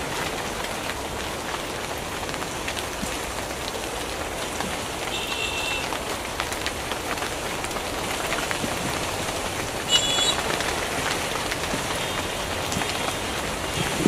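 Heavy rain falling steadily, a dense even spatter. Two brief high-pitched tones cut through it, about five seconds in and about ten seconds in.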